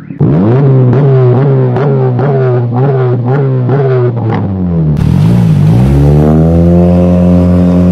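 Honda City's four-cylinder engine sounding through an HKS burnt-tip free-flow muffler with the silencer and resonator removed. It is blipped in quick revs about twice a second for the first four seconds. Then the car pulls away, the exhaust note rising and then holding steady.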